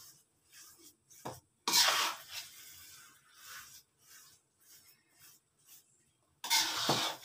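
Metal spatula scraping and turning thick, sticky glutinous rice in a wok as biko is stirred, with two longer, louder scrapes about two seconds in and near the end and softer scraping between.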